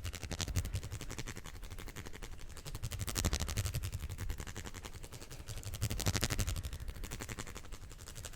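Fast, aggressive hand sounds: hands rapidly rubbing and scratching, a dense run of quick strokes that grows louder about three seconds in and again about six seconds in.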